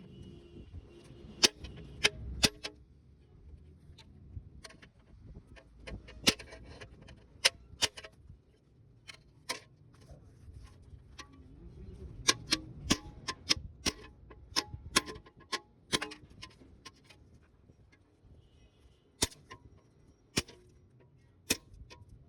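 Irregular sharp clicks, taps and knocks from hand work on a car's front mudguard, spaced unevenly, some much louder than others, over a faint low rumble.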